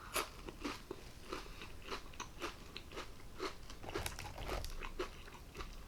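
Close-up chewing of a crispy fried onion ring: a run of crisp crunches, about three or four a second.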